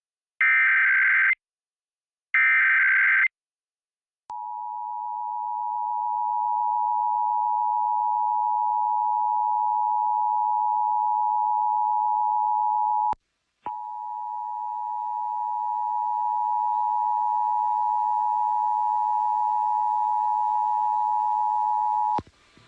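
Emergency Alert System test on FM radio: the last two bursts of the SAME header's digital data tones, a harsh buzzing warble, then the two-tone attention signal (853 and 960 Hz together) sounding steadily for about 18 seconds. The attention tone swells up over its first couple of seconds and drops out briefly about 13 seconds in.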